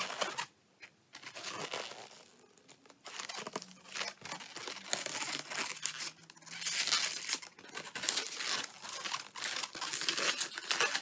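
Green 260Q latex modelling balloons squeaking and rubbing against each other and against hands as they are twisted and folded into shape, with a short pause about half a second in.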